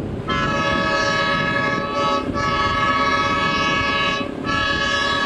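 Diesel locomotive horn of an approaching fuel tank train, sounding three long blasts with short breaks between them. The third blast runs on past the end.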